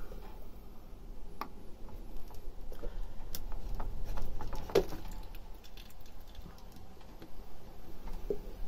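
A few scattered light clicks and knocks, the loudest a little before the middle, over a steady low rumble.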